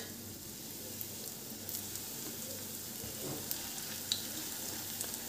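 Bread slices deep-frying in hot refined oil in a kadhai on a high flame: a steady sizzle, with a few faint clicks.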